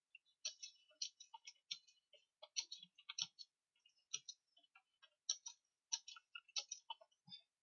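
Computer keyboard keys being pressed in a steady run of faint, irregular clicks, about three or four a second, as words are typed out.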